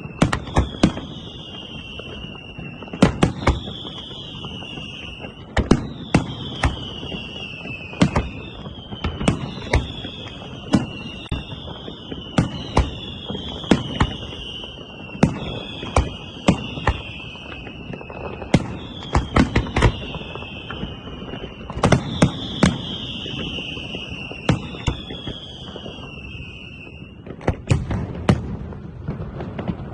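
Fireworks display: sharp bangs every second or two, most of them with a whistle that falls in pitch for a second or two after the bang. The whistles stop about three seconds before the end, leaving a few bangs.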